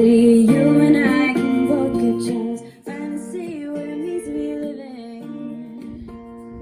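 Song playing: fingerpicked acoustic guitar with a woman singing. The voice drops out about three seconds in, and the guitar carries on more quietly.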